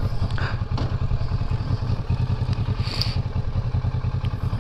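Motorcycle engine running at low speed in traffic, a steady low pulsing throb. A brief hiss comes about three seconds in.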